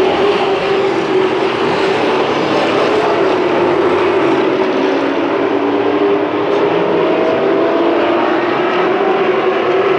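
A pack of short-track race trucks running at race speed around an asphalt oval: a loud, steady drone of many engines together, their tones rising and falling slightly as trucks pass.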